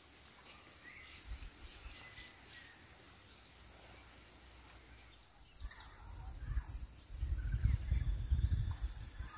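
Several small birds chirping and calling, faint at first. In the last two seconds or so a louder low rumble on the microphone rises under the calls.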